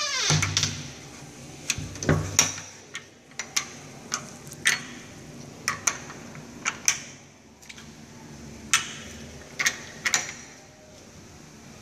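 Metal toilet-stall door latch being worked by hand: a string of sharp, irregular clicks and clacks, some coming in quick pairs.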